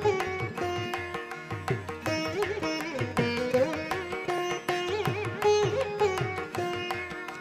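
Instrumental background music in an Indian classical style: a plucked string melody with sliding, bending notes over soft hand-drum strokes.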